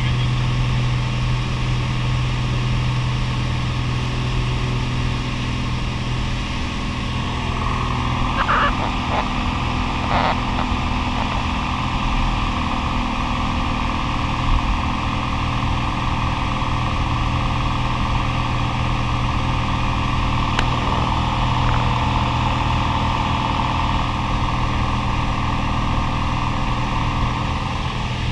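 Single-engine light aircraft's piston engine and propeller running steadily at takeoff power, heard inside the cockpit through the takeoff roll and climb-out. A couple of brief clicks about eight and ten seconds in.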